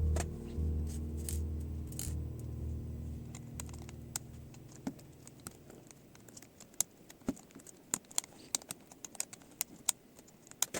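Irregular small, sharp clicks and light taps of laptop parts and tools being handled during disassembly. Background music fades out over the first few seconds.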